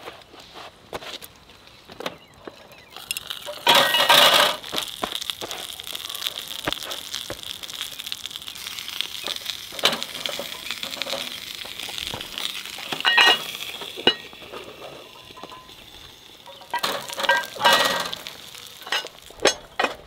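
Meat and onions sizzling in a cast-iron pan over a charcoal grill, with clinks and knocks of the iron pans on the grill grate. The sizzle surges loudly about four seconds in and again near the end.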